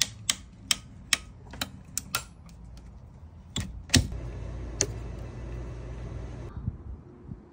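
Sharp plastic clicks and clacks of a youth BB gun's action being worked and cocked, about a dozen irregular clicks over the first four seconds, then a faint steady hiss.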